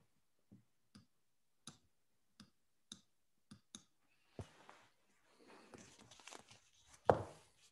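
Scattered sharp clicks of someone working at a computer, about one or two a second. Some rustling follows, then a single louder thump near the end.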